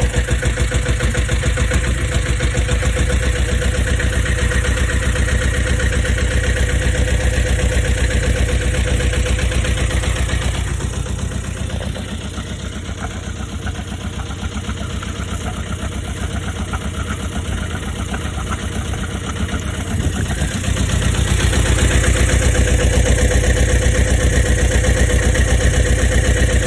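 Bukh DV8 single-cylinder marine diesel running above idle with a fast, even beat. It runs quieter for several seconds in the middle, then louder again near the end.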